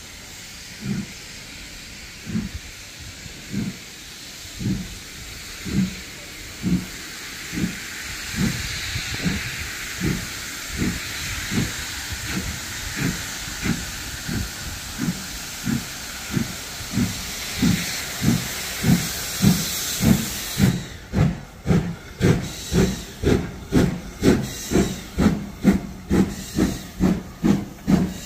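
LMS Stanier Mogul 2-6-0 No. 13268 working a train, its chuffing exhaust beats quickening from about one a second to more than two a second and growing louder as it gets under way. A hiss of steam runs alongside and stops abruptly about two-thirds of the way through.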